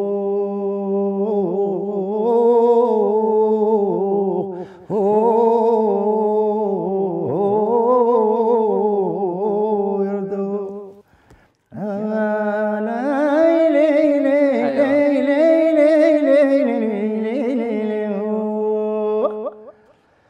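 A man singing a Yemeni folk malalah unaccompanied: long held notes that waver and bend, sung in three phrases with a short breath about five seconds in and a pause about eleven seconds in. The last phrase climbs higher and fades out near the end.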